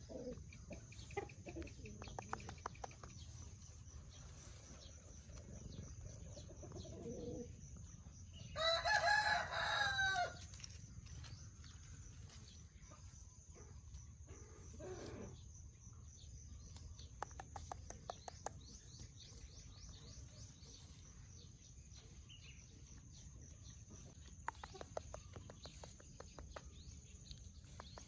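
Farmyard chickens clucking in short rapid runs, with a rooster crowing once, loudly, about nine seconds in.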